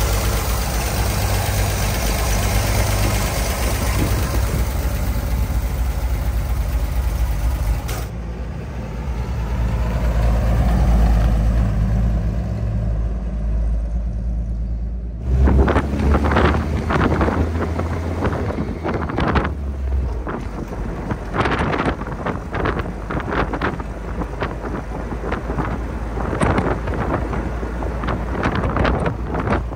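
1969 Toyota FJ40 Land Cruiser's inline-six engine idling steadily with the hood open. After a cut, the engine note swells and fades about a third of the way in. From about halfway, the engine runs while driving, heard from inside the open-top cab with wind buffeting the microphone.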